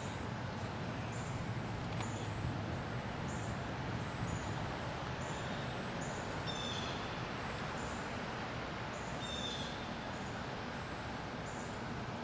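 Steady low background rumble, with a bird chirping in short phrases twice and a faint high chirp repeating about once a second.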